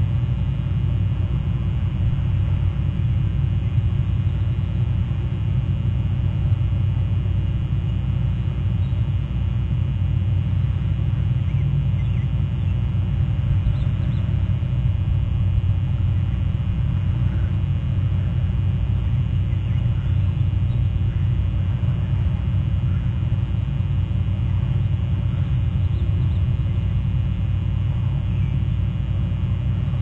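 Steady low rumble from an outdoor webcam microphone, with a few faint short calls in the middle stretch.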